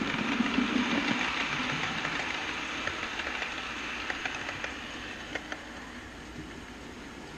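OO gauge model train running along its track: a steady rumble of wheels and motor with scattered clicks as the wheels cross the rail joints. It fades steadily as the train moves away.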